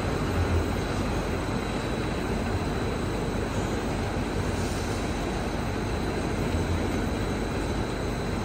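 Solidboard laminating machine running steadily: an even mechanical noise of its rollers and drives turning, with a faint high steady whine on top.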